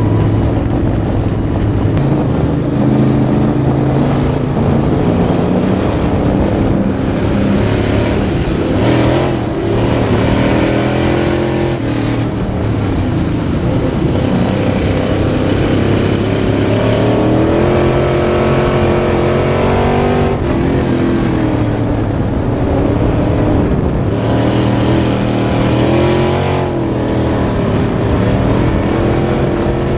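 A Sportsman dirt-track race car's engine at full racing speed, heard from inside the cockpit. Its pitch climbs for several seconds and then drops off sharply, again and again, as the throttle is lifted and reapplied around the track.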